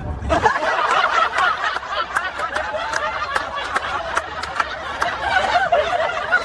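Several people laughing and snickering together, a dense overlapping burst of laughter that starts about half a second in and keeps going.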